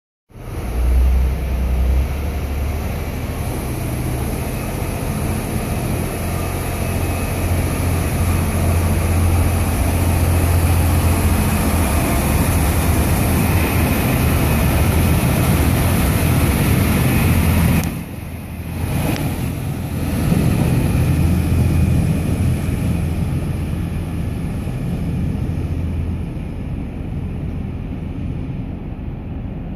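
DSB MR diesel multiple unit pulling away under power, its diesel engines running with a deep, steady drone. About eighteen seconds in the sound drops off for a moment, then the engines pull again and slowly fade as the train draws away.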